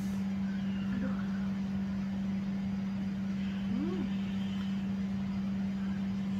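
A steady low electrical or machine hum at one unchanging pitch, with a faint brief tone that rises and falls about four seconds in.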